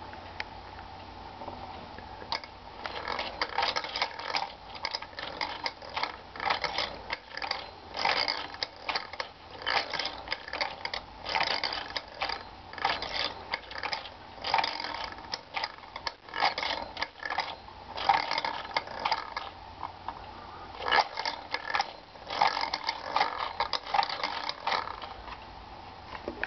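Scale-model railroad handcar's pump-handle linkage and gearing clicking and rattling as the handle is worked by hand, in bursts every second or so from about two seconds in.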